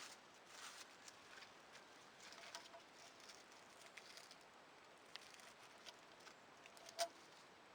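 Near silence, with faint scattered patter and small ticks and one sharper click about seven seconds in.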